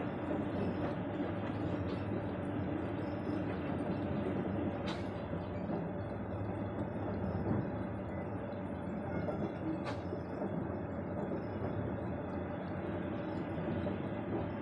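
John Deere tractor's diesel engine running steadily while working its front loader, lowering the bucket and reversing away. Two short clicks come about five seconds apart.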